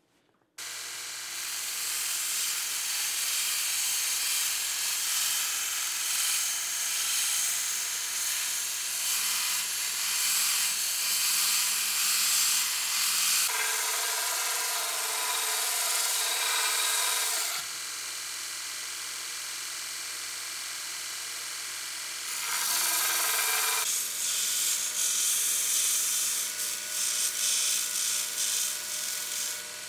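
Power grinder running with a steel center punch being ground on it: a steady grinding hiss that changes abruptly several times as the work and contact change.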